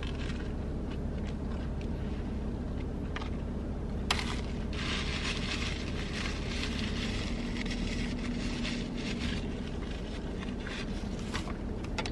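Close-miked chewing of a bite from a bread roll sandwich, with a few seconds of crackly crunching starting about five seconds in, over a steady low hum in the car cabin.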